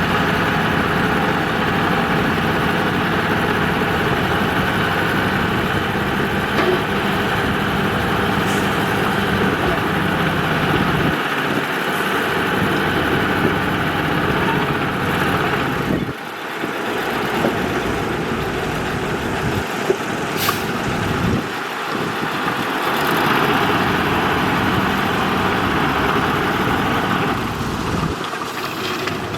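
Bulldozer's diesel engine running steadily while pushing soil, with a brief drop in level about halfway through.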